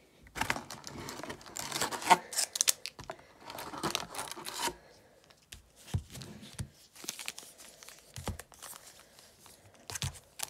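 Plastic hockey card pack wrappers crinkling and tearing as packs are pulled from the box and opened, busiest in the first few seconds, then scattered rustles and a few soft thuds.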